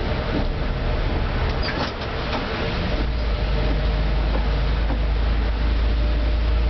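City bus engine and road noise heard from inside the bus, steady, with a deep rumble that grows stronger about three seconds in.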